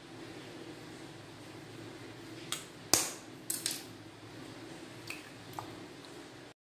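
An egg knocked against the rim of a stainless steel bowl to crack it: a sharp knock about three seconds in with a few smaller clicks around it, then lighter clicks as the shell is pulled apart over the bowl. A steady low hum runs underneath, and the sound cuts off suddenly near the end.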